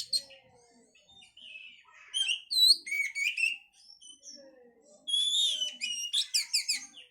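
Oriental magpie-robin singing: varied whistled phrases, slurred notes and quick chirping trills, in two loud bursts about two and five seconds in.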